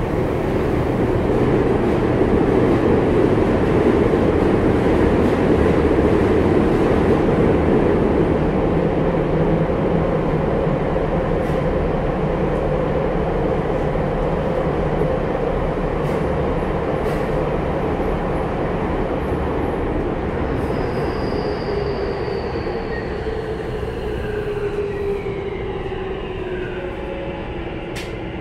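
Tokyu 5050 series subway train heard from inside the car, running through a tunnel: a steady rumble of wheels and running noise that slowly eases. About 20 s in, the Hitachi IGBT-VVVF inverter's whine comes in and falls in pitch as the train slows.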